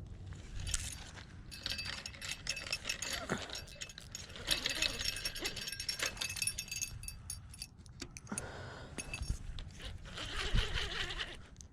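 Fishing reel being cranked while a hooked catfish is played: a fast ticking rattle in stretches, easing off about two-thirds of the way through and picking up again near the end.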